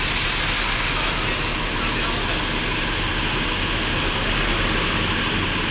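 Diesel engine of a Mercedes-Benz intercity coach running steadily at idle: an even low hum under a constant hiss.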